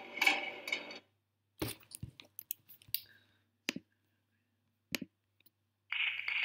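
Performance music cuts off about a second in. Several separate sharp computer mouse or trackpad clicks follow, then a short burst of noise near the end.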